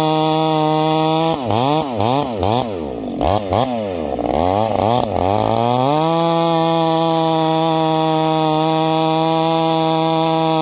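Husqvarna 390 XP two-stroke chainsaw fitted with an aftermarket ramhorn muffler, running at high revs. About a second in, the revs swing rapidly up and down for roughly four seconds, then it settles back to a steady high pitch.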